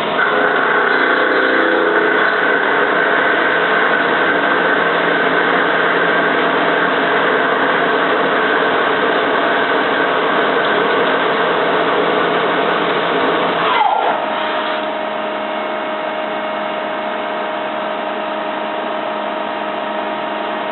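CNC lathe running through a machining cycle: a steady machine whir mixed with cutting noise. About fourteen seconds in, a whine drops quickly in pitch and the sound settles into a quieter, steady hum.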